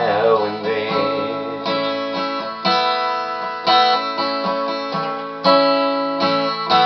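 Steel-string acoustic guitar strummed alone, a chord struck about once a second and left to ring.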